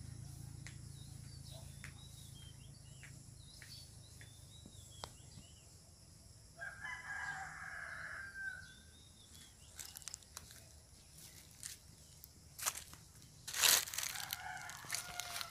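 A rooster crows once for about two seconds, about halfway through. Near the end dry leaves and branches crackle in sharp bursts, the loudest shortly before the end.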